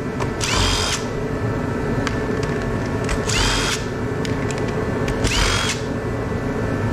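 Handheld power drill/driver run in three short bursts, each about half a second, spinning up with a rising whine to a steady pitch. It is backing screws out of LED light panels being dismantled. A steady low hum runs underneath.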